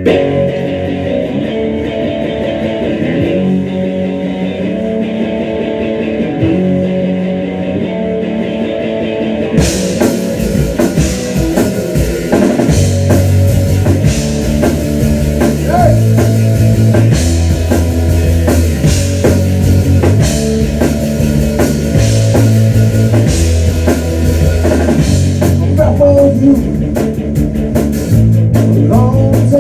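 Rock band playing live: an electric guitar riff alone at first, the drum kit with cymbals coming in about ten seconds in, and the bass guitar joining a few seconds later.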